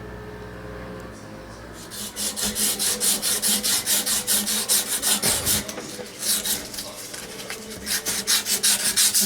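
Sandpaper rubbing back and forth on a copper refrigerant line in quick, even strokes, about five a second, starting about two seconds in and pausing briefly midway. A steady low hum runs under the first two seconds.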